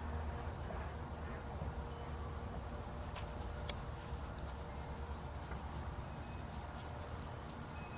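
Faint outdoor background: a steady low rumble of wind on the microphone, with scattered light clicks and ticks through the second half.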